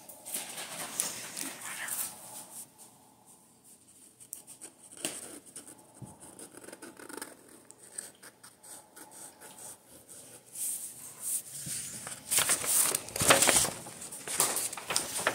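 Felt-tip marker scratching across paper in many short strokes while colouring, then louder rustling of the sheet of paper being handled near the end.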